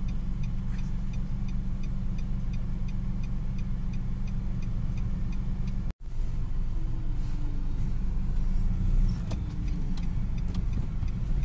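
Inside a car: the engine idles with a steady low hum while the indicator flasher ticks evenly, about three ticks a second. After a sudden cut about six seconds in, the ticking stops and the car is driving, with engine and road noise.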